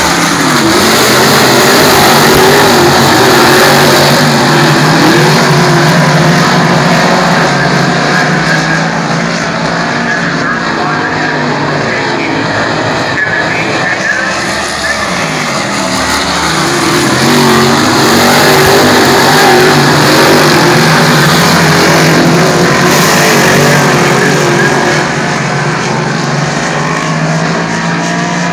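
Dirt modified race cars' V8 engines racing in a pack around a clay oval, the pitch rising and falling as the drivers get on and off the throttle. The sound swells loud twice as the field passes, a couple of seconds in and again about two-thirds through.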